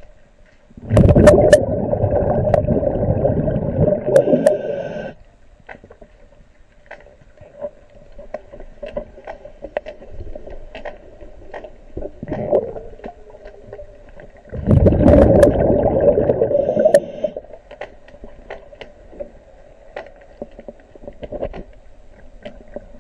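Underwater sound: two long bursts of rough bubbling, the first about four seconds long and the second about two and a half seconds long, from a diver breathing out, over a faint steady hum and scattered light clicks.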